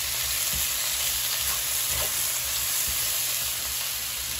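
Sliced pears frying in hot vegetable oil in a skillet, a steady sizzle, while a spatula stirs and turns them, with a few soft scrapes against the pan.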